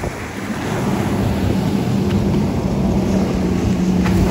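Outboard engine of a center-console boat running at speed, a steady drone that grows louder as it passes, over wind buffeting the microphone and the hiss of its wake.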